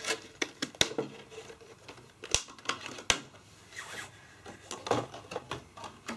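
Memory modules being popped out of their plastic blister packaging: scattered sharp plastic clicks, a few of them louder, with light crinkling and handling in between.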